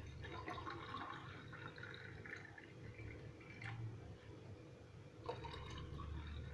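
Water poured from a jug into a drinking glass, splashing as it fills, for about two and a half seconds; after a short lull a second pour into another glass starts about five seconds in.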